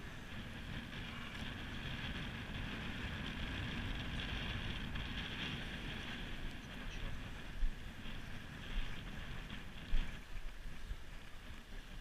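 Wind buffeting the microphone, with choppy sea washing against a harbour wall; a few short knocks in the second half, the loudest about ten seconds in.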